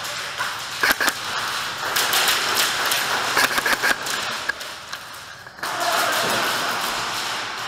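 Indoor airsoft gunfire: scattered sharp snaps and knocks, thickest in the first four seconds, over a steady noisy background.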